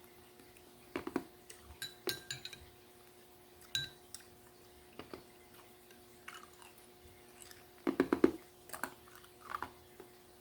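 Cutlery clinking and scraping against a dish in scattered short taps, loudest about eight seconds in, over a faint steady hum.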